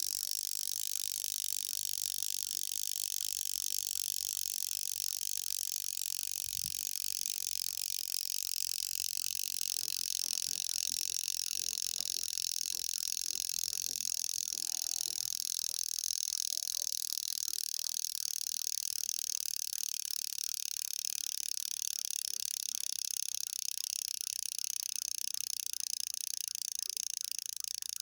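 Small German travel alarm clock movement's alarm ringing without a break, a steady high-pitched rattle, as its wound mainspring runs down with the stop gear removed and the alarm stem pulled out.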